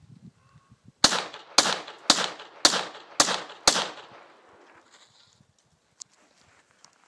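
Bullpup rifle fired six times in a steady rhythm, about two shots a second, each a sharp crack with a short ring-off.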